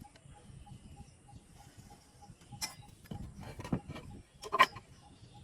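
A few sharp knocks and clatters, the loudest about four and a half seconds in, over a faint, even ticking of about three to four ticks a second.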